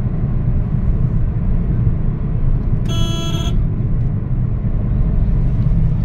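Steady road and engine rumble heard from inside a moving car, with one short horn beep about halfway through.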